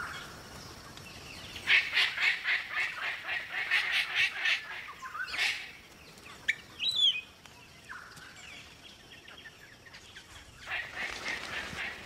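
A flock of parrots calling: a fast run of repeated calls for a few seconds, a single rising whistled note about seven seconds in, then more repeated calls near the end.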